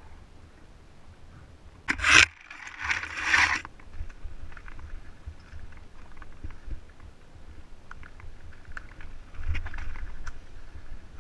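Mountain bike rolling over a dirt trail and rock, with tire crunch, small clicks and the rattle of the bike. A loud scraping rush comes about two seconds in and lasts about a second and a half.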